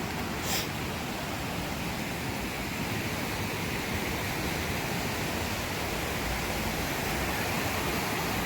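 Steady rush of flowing water from a creek, with a brief sharp click about half a second in.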